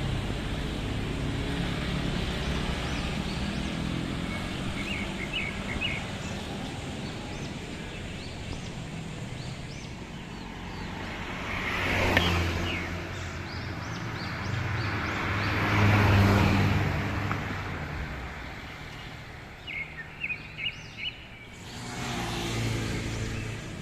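Road traffic going past, with two louder vehicle pass-bys swelling and fading about twelve and sixteen seconds in. Short high bird chirps come in small clusters now and then, a quick run of them a little before the end.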